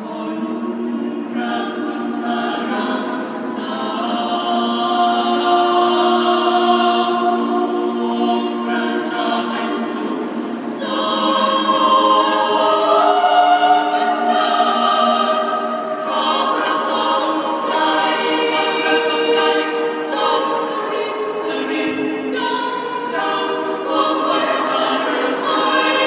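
Small mixed choir of men's and women's voices singing unaccompanied in parts, holding chords that shift every second or two.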